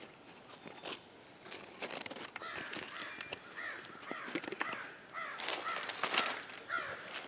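Crows cawing several times, with the crackle and rustle of dry leaf litter being handled close by. The crackling is loudest about three quarters of the way in.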